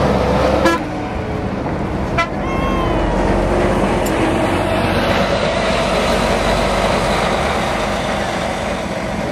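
Mercedes-Benz diesel touring coaches driving past and pulling away, a steady engine rumble with tyre noise on brick paving. Two sharp clicks come in the first few seconds, the second followed by a short high toot.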